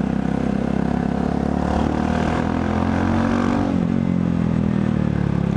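Motorcycle engine running under way, its pitch climbing as it revs up and then falling back a little past halfway.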